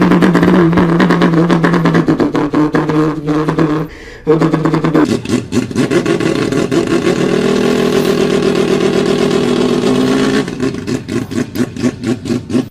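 Engine sound effect from a children's ride-on toy Mini Cooper: a steady hum that drops out briefly about four seconds in, then comes back with a wavering, revving pattern.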